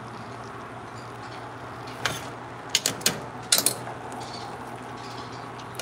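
Metal spatula knocking and scraping against the rim and sides of a steel cooking pot, a run of sharp clicks between about two and four seconds in, as rice is spread over chicken curry. A steady low hum runs underneath.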